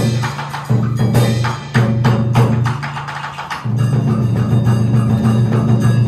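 Traditional Vietnamese water-puppet theatre percussion: quick wood block and drum strikes, which give way, a little over halfway through, to continuous low drumming.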